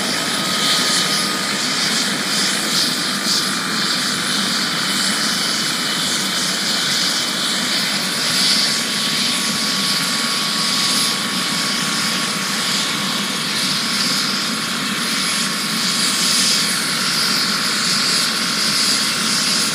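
Air ambulance helicopter running on the ground, its turbine giving a steady whine over a constant wash of engine and rotor noise.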